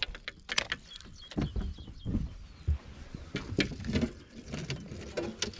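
Irregular clicks, knocks and light clatter of fishing rods and reels being handled on a boat's deck.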